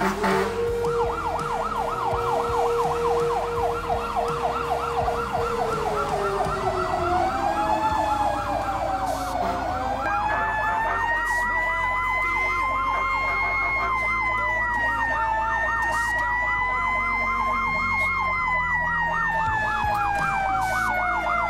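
Fire engine sirens sounding together: a fast electronic yelp warbles rapidly up and down, while a slower wail holds, dips, and then rises and falls in pitch several times.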